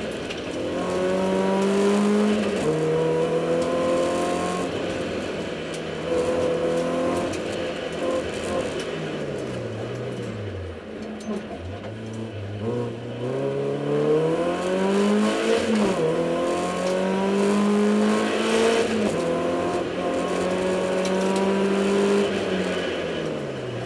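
BMW E30 318is's four-cylinder engine heard from inside the cabin, revving hard through the gears: repeated climbs in pitch cut short by gear changes, a dip to low revs about halfway through, then hard acceleration again.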